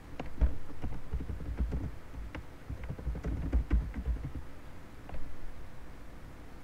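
Typing on a computer keyboard: an irregular run of keystrokes, each with a dull low knock, stopping about five seconds in.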